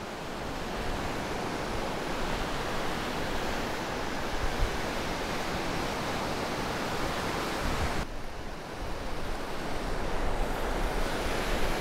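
Surf breaking and washing up the beach, a steady rushing noise, with wind on the microphone.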